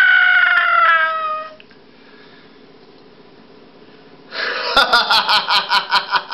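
A long high-pitched wailing cry that slides down in pitch and dies away in the first second and a half. After a short lull comes a loud, rapidly pulsing high-pitched cry, about five pulses a second, with sharp clicks among them.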